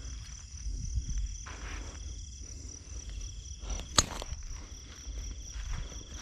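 Insects chirring steadily, a constant high note with a lower one that stops and starts, over a low rumble. A single sharp click about four seconds in.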